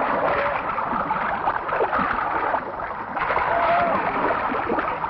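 Rushing, splashing river water, with people's voices mixed in: short calls just at the start and again around three and a half seconds in.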